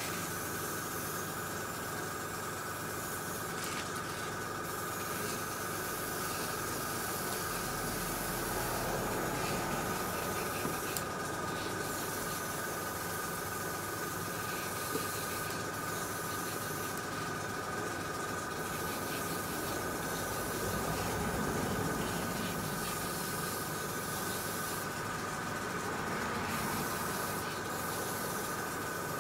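Airbrush spraying enamel paint: a steady hiss of air that runs on without a break. A steady high tone sits alongside the hiss.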